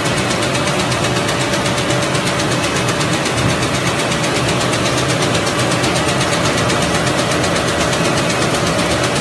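A4 paper sheeting machine running steadily, its paper web feeding off a large roll past the slitter knives: a continuous even mechanical drone with a faint steady whine.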